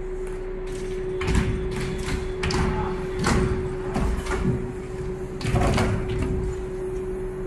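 Aluminium sewing frame being pushed by hand along the rails of a CNC sewing machine's frame changer, clattering and clunking several times as it slides. A steady machine hum runs underneath.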